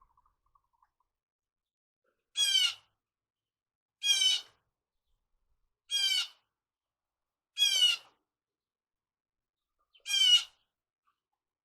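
A bird calling five times, each call a short, slightly falling squawk, the calls about two seconds apart.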